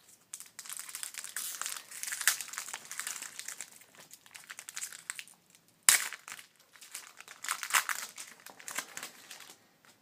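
Foil wrapper of a baseball card pack crinkling as it is torn open and handled, with a sharp snap about six seconds in.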